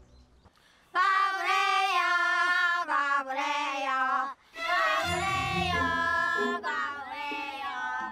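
Children singing a sing-song taunting chant in long drawn-out notes, starting about a second in, with backing music joining about five seconds in.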